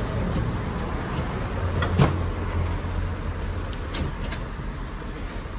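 Inside a New Orleans streetcar: the car's steady low hum and rumble, with one sharp knock about two seconds in and two lighter clicks about four seconds in.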